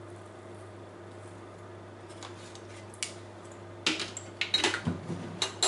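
Hand pepper mill being twisted, giving a run of short crackling clicks as the peppercorns are ground. The clicks start about four seconds in, after a few seconds of faint low room hum.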